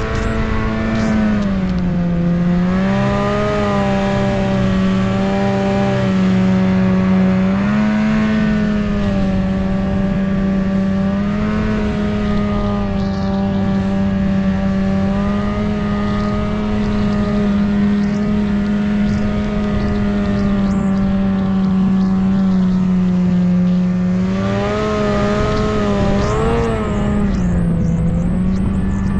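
Snowmobile engine running steadily under way, its pitch dipping and coming back up with the throttle near the start, about a quarter of the way in, and wavering up and down several times near the end.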